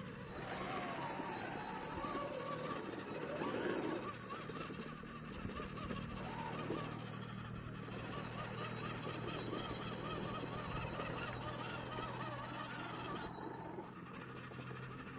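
Small RC crawler's electric drive whining as it is driven in bursts over rocks: a thin high whine switches on and off with the throttle, over a wavering motor and gear drone.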